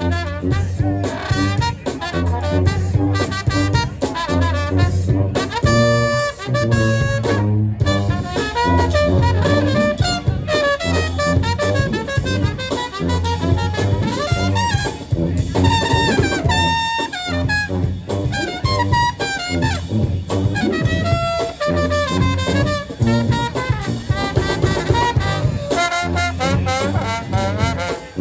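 Live brass band playing a jazz-funk tune: trumpet, trombone and saxophone lines over a repeating sousaphone bass line and drums.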